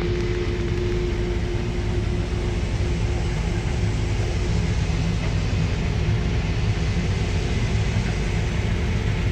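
Heavy farm machinery running steadily: a low, even engine drone with a faint steady whine above it.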